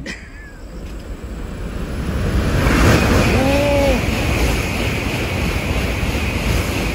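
N700-series Shinkansen bullet train passing at speed close by: a rushing noise of air and rails that builds over the first three seconds and then holds. A brief tone rises and falls about three seconds in.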